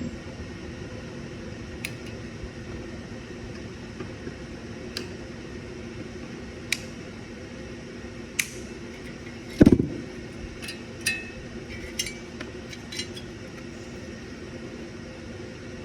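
Scattered clicks and clinks of hand tools and metal parts being taken off a Kohler V-twin mower engine, over a steady fan-like hum, with one louder knock near the middle.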